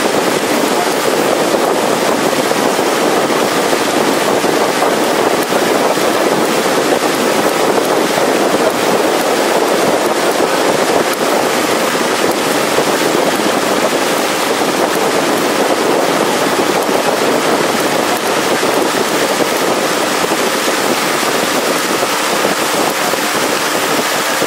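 A river longboat under way at steady speed: the motor's even hum mixed with water rushing past the hull and wind buffeting the microphone.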